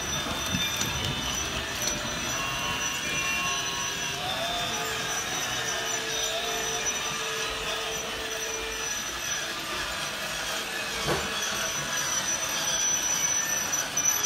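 Battery-powered toy train running around a plastic track, its small motor whirring and its wheels clattering steadily. It grows louder near the end as the train passes close by.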